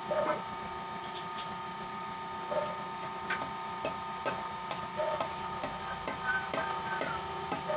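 Light hammer taps driving an oil seal into the rear hub of a Bajaj RE. A few scattered taps at first, then steady taps about two or three a second from about halfway through.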